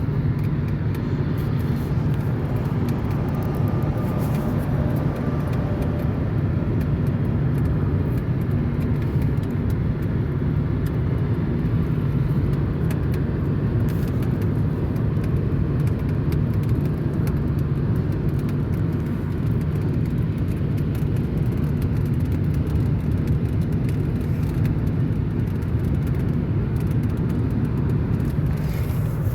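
Steady road and engine noise heard inside a car's cabin while cruising at about 85 mph on the highway, a low, even rumble with no change.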